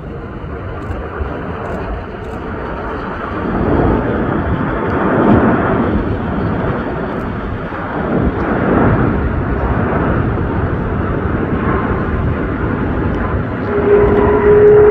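Jet airliner's engines passing low on landing approach: a broad rushing roar that swells about four seconds in and stays loud, with a steady whine coming in near the end.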